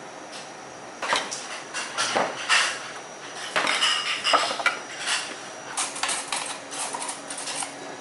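Dishes and cutlery clattering: a quick, irregular run of clinks and knocks that starts about a second in and goes on until near the end.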